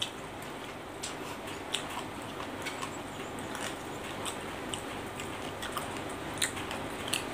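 Light, scattered clicks and ticks of a metal fork against a stainless steel bowl of rice noodles and vegetables, with quiet chewing, over a steady background hiss.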